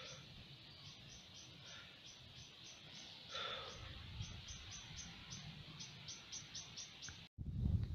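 Faint outdoor ambience of insects chirping in short, high, evenly repeated pulses, a few per second, with one brief louder call about three and a half seconds in, over low wind and handling rumble. The sound cuts out for an instant near the end and comes back as louder rumble.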